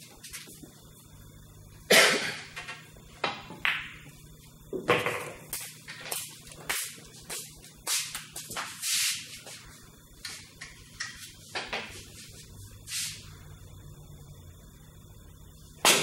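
Pool balls clacking: a sharp cue strike and ball-on-ball hit about two seconds in, then a run of lighter clicks and knocks as the balls collide and roll, and another sharp strike near the end.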